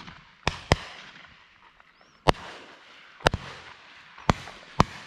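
Shotgun shots from other hunters at a distance: about six sharp reports, some in quick pairs, each with a short echoing tail.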